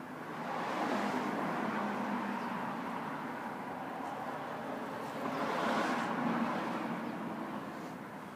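2000 Jeep Wrangler's 4.0L straight-six running with a loud, intermittent whistling rush from the intake area, swelling about a second in and again around six seconds in before easing. The owner believes it is air being sucked in past a leaking throttle arm bushing.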